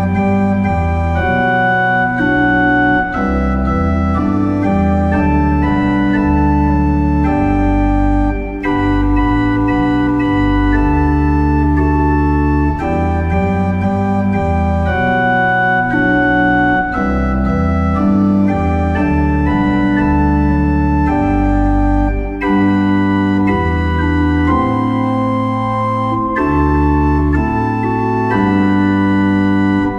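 Instrumental backing track for a hymn, played on an organ-like keyboard: slow sustained chords over a moving bass line, with no singing.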